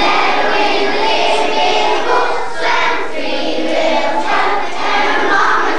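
A large group of children singing together.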